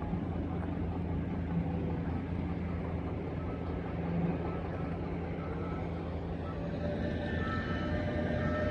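Steady low rumble of motor vehicle engines, with faint short repeating beeps starting near the end.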